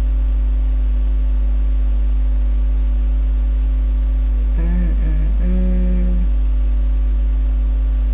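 Loud, steady electrical mains hum throughout. A brief wordless hummed voice, in two short parts, comes about five seconds in.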